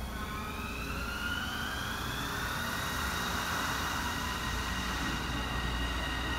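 Kobe Port Liner rubber-tyred automated train pulling away. Its electric drive gives a whine that rises in pitch over the first few seconds and then holds steady, over a low rolling rumble.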